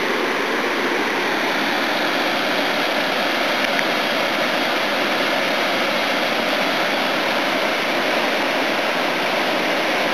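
River water pouring over a dam spillway: a steady, unbroken rush of whitewater.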